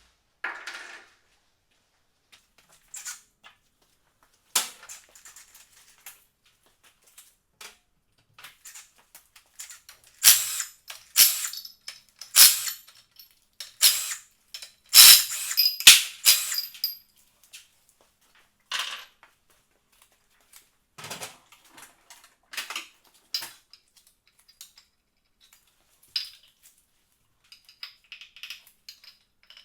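Hand tools and metal engine parts clinking and knocking as an engine is taken apart: irregular sharp clicks and clanks, thickest and loudest from about ten to seventeen seconds in.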